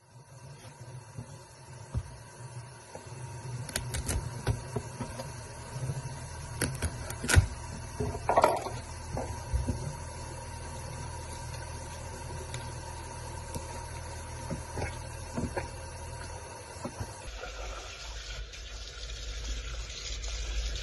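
Kitchen faucet running a thin stream of water into a sink, with a few sharp knocks and handling sounds as a rabbit is skinned under it. About three quarters of the way through, the running-water sound changes character.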